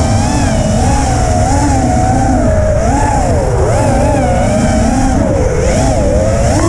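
Racing quadcopter's brushless motors and propellers whining, the pitch swooping up and down constantly with the throttle, with a steady low rumble underneath, as picked up by the camera on board the quad.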